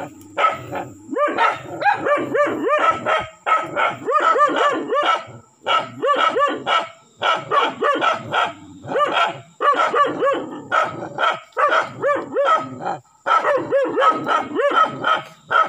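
Dogs barking rapidly and insistently, several sharp barks a second in runs broken by short pauses. They are barking at a large monitor lizard they have been attacking.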